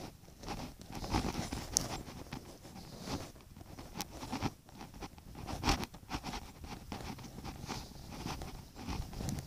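Footsteps rustling through dry fallen leaves: an irregular run of soft crunches and scuffs.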